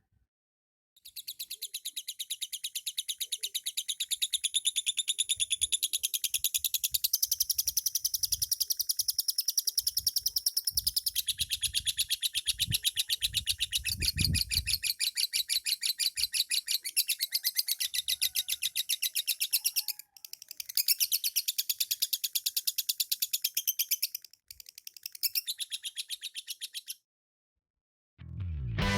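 Female lovebird singing its rapid, chattering 'ngekek' song in one long unbroken run of nearly twenty seconds, then two shorter runs after brief breaks. The length of the run is the song duration that lovebird keepers try to build, here with bamboo therapy.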